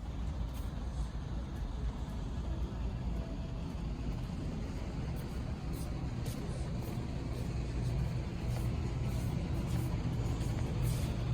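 Steady low rumble of background noise, with faint ticks now and then.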